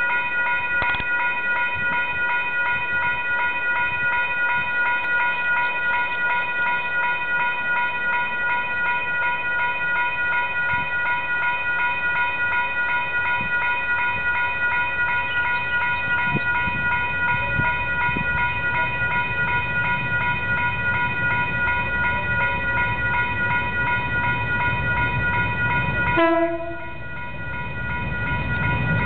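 Diesel locomotive horn held as one long steady chord that cuts off abruptly near the end. Underneath it the rumble of an approaching DC-class diesel-electric locomotive hauling a container freight train grows from about two-thirds of the way in.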